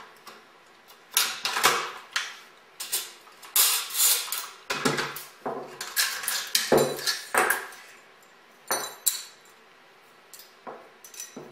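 AR-15 rifle being field-stripped by hand: an irregular run of sharp metallic clicks, clacks and rattles as its parts are pulled apart and set down.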